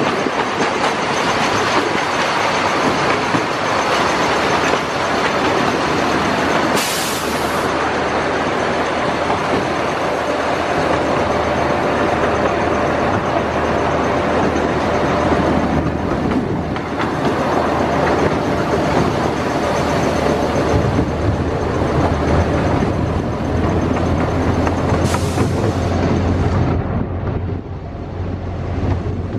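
Open passenger car of a miniature train rolling along the track: a steady loud rumble and rattle of wheels on rails, with a brief higher hiss twice. The sound eases slightly near the end.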